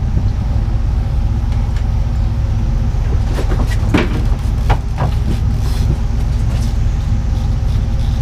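Boat engine running steadily at trolling speed, a constant low drone. A few short clicks and knocks come about halfway through.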